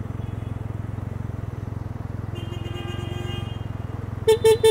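Can-Am Ryker 900's three-cylinder engine running steadily at low revs in traffic. A horn sounds for about a second halfway through, then gives three short toots near the end.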